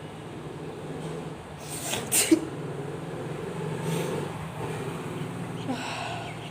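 A woman sneezes once, sharply, about two seconds in; the sneeze was brought on by tickling inside her nose. A softer breathy burst follows near the end, over a steady low background hum.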